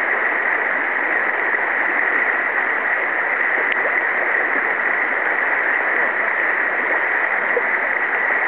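Shallow river water running steadily over a rocky riffle, an even rushing sound.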